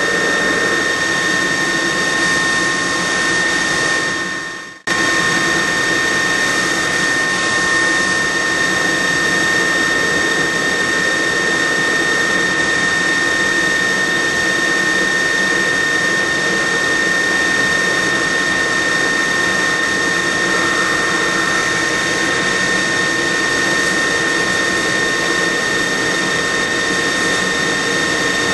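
Fryer ET-21 CNC lathe machining a metal part with its live-tooling turret: steady machine and cutting noise under a constant high whine. The sound fades and cuts out briefly about five seconds in, then comes straight back.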